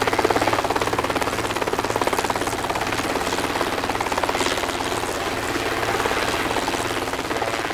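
Hummingbird wingbeats slowed to a tenth of their speed: a steady, rapid rhythmic fluttering pulse, much like a helicopter's rotor chop.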